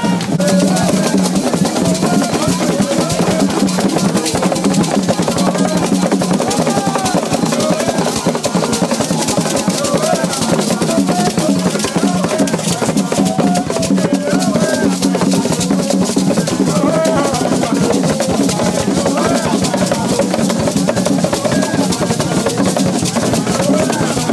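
Drumming in a dense, fast, steady rhythm, with voices singing over it.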